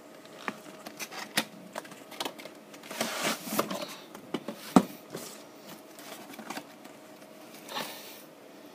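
Cardboard model box and its packaging being opened and handled: scattered light clicks and taps with bursts of rustling, and one sharp knock about five seconds in.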